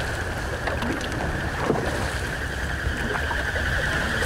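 A steady high whistling from the wings of a large flock of goldeneyes in flight, with a fainter higher whistle joining near the end. Wind rumbles on the microphone underneath.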